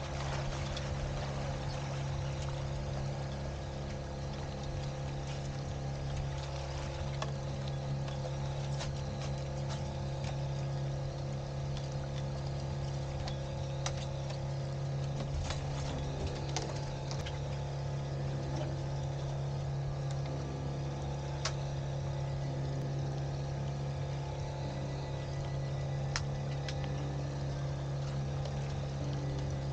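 A fishing boat's engine running steadily at low trolling speed, a constant low drone. Scattered light clicks and knocks from gear being handled on deck.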